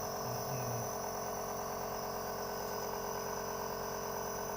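Nebulizer compressor running with a steady, even hum, turning the medicine into mist.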